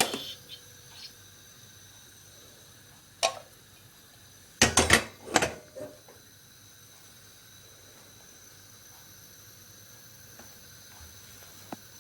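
Stovetop Bialetti Mukka Express cappuccino maker heating on the hob: a hiss cuts off at the start, then a sharp click about three seconds in and a quick cluster of metallic knocks and clicks around five seconds in, over a faint steady hiss. This is the kind of hiss and ticking a pot makes as pressure builds and air escapes before it sprays.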